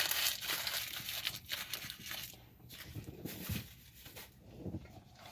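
Takeout burger wrapper paper crinkling as it is handled, fading after about two seconds, followed by a few soft, quieter handling sounds.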